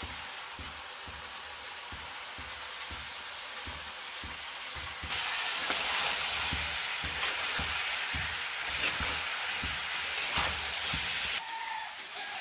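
Cauliflower and potato pieces sizzling in hot oil in a steel kadhai, stirred with a metal spatula that scrapes and clicks against the pan. The sizzle grows louder about five seconds in and drops back near the end.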